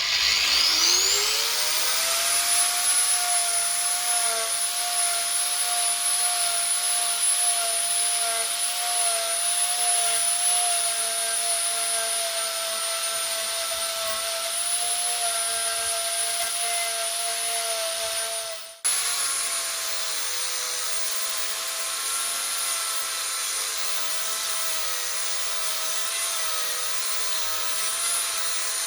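An angle grinder fitted with a belt-driven Manpa Multi Cutter spins up with a rising whine over about two seconds, then runs steadily while carving wood. The sound breaks off sharply about two-thirds of the way through and picks straight up again.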